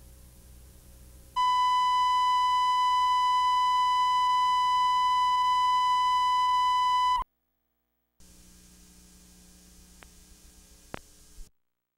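Broadcast line-up test tone on a videotape recording: one steady high-pitched beep held for about six seconds, cutting off suddenly. Then comes a second of dead silence, faint tape hum, and two clicks near the end.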